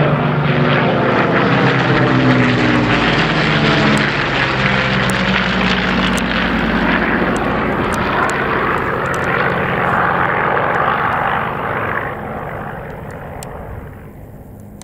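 Curtiss P-40F Warhawk's Packard Merlin V12 engine running hard in a display pass, its pitch falling as it goes by. The engine sound fades away over the last few seconds as the aircraft flies off.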